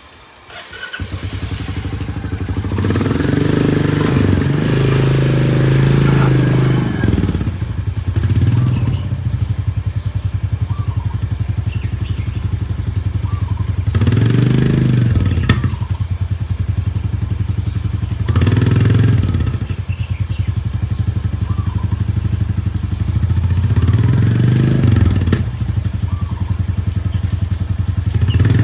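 Motorcycle engine starting about a second in, then running steadily, its note swelling briefly several times.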